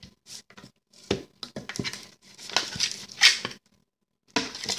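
Homemade slime being mixed in a glass bowl: a spoon clicking and scraping against the glass and the sticky mixture squishing as it is worked and pulled by hand, in irregular bursts with a short pause near the end.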